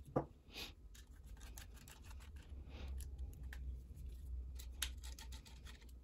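Faint, scattered small clicks and light scraping as screws are turned out of a 2.5-inch laptop hard drive's metal mounting bracket with a small screwdriver.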